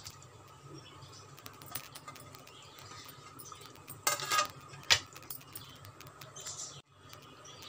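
Spatula clinking and scraping against the pan while paneer cubes are stirred into thick spinach gravy. There is a short cluster of clinks a little past halfway, with a faint steady hum underneath.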